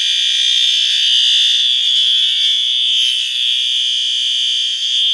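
Notifier NFW-50C fire alarm system in alarm, sounding one loud, steady high-pitched tone without pause, its signalling set to continuous.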